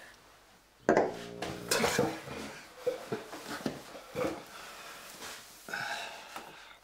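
Stemmed wine glasses set down on a table: a sharp knock about a second in, then light clinks and taps of glass and paper.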